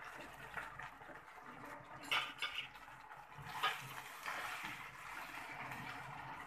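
Marinated chicken pieces sizzling in hot oil in a non-stick kadai, with a wooden spatula scraping and knocking against the pan as the pieces are moved. The clearest knocks come about two seconds and three and a half seconds in.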